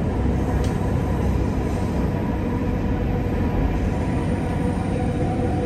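Steady rumble of a moving vehicle, with a faint steady whine coming in about four seconds in.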